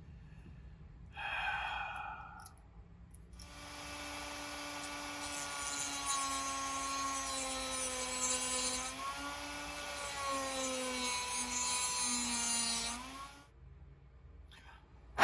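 A small handheld power tool runs for about ten seconds with a high whine that wavers and dips in pitch as it takes load. A sharp click comes near the end.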